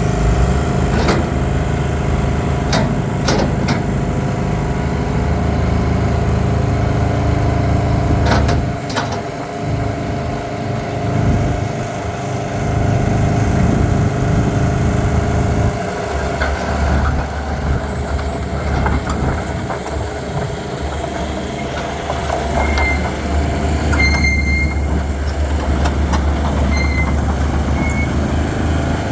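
Hitachi EX120 excavator's diesel engine running steadily, its note falling away about eight seconds in and coming back strong around sixteen seconds. There are a few sharp knocks in the first nine seconds.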